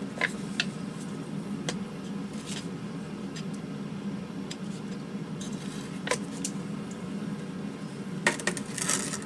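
Scattered light clicks and scrapes of silver-soldering flux being stirred into a paste in a small dish, with a few quick clicks close together near the end, over a steady low hum.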